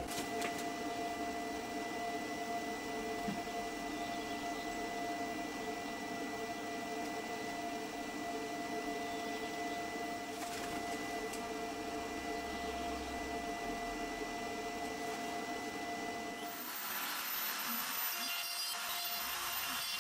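A steady hum with a few held tones, then, a few seconds before the end, a Euro Makers Aureus 3X CNC router's spindle running and cutting, milling the cured epoxy inlays flush with the wood.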